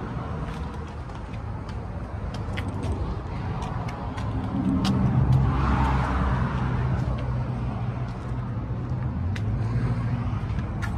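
Engine of a 1972 Ford pickup running steadily, getting louder for a couple of seconds around the middle.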